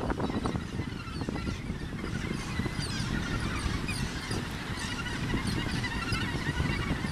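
Australasian gannet colony calling: many short calls from many birds overlapping continuously, over a steady low rumble.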